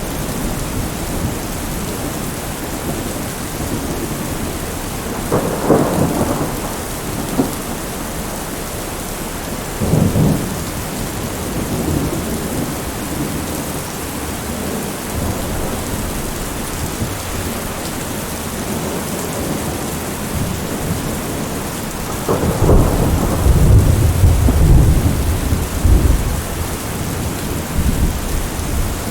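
Heavy rain falling steadily through a thunderstorm, with rolls of thunder: short cracks about six and ten seconds in, and a longer, louder deep rumble from about twenty-two to twenty-seven seconds in.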